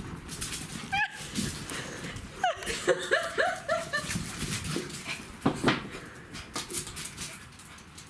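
Young dogs playing, with short whines and yips, most of them in a quick cluster a few seconds in. Scuffling clicks of paws come from the paving.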